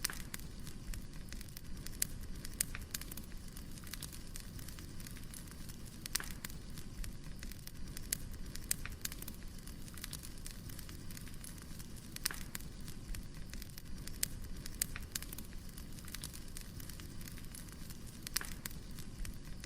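Wood fire crackling: irregular sharp pops and snaps of burning logs over a steady low rumble.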